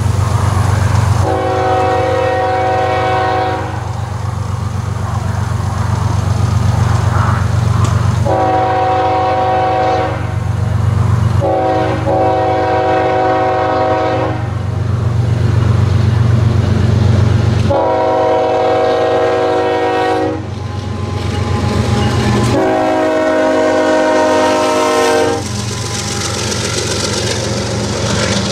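Diesel locomotive air horn sounding five long blasts for a grade crossing, each a steady chord of several notes, over a steady low rumble. Near the end the CSX lead locomotive reaches the crossing and rumbles past.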